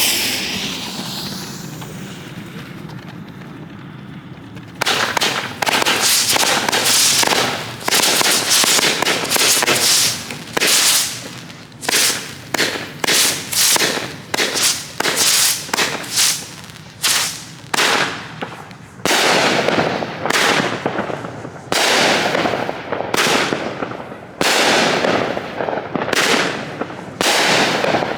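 Brothers 'Evil Enemy' 36-shot 200-gram consumer firework cake: a fading hiss for about five seconds, then a long, loud string of shots firing one after another, some in quick clusters.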